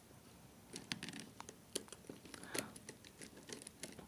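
Faint, scattered small clicks and scrapes of a wire being pushed into a power contactor's screw terminal while a screwdriver works the terminal screw.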